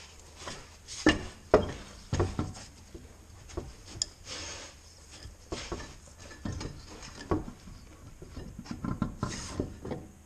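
Irregular metal clinks, knocks and scraping as the wheel and lug nuts are handled and the wheel is fitted back onto the hub, with the two loudest knocks about a second in.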